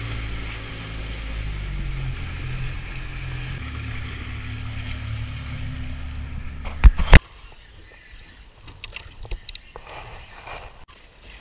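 Outboard motor running with the boat underway, a steady low hum over the rush of water and wind. About seven seconds in come two loud sharp knocks, then the engine sound cuts off, leaving faint water sounds and small scattered clicks.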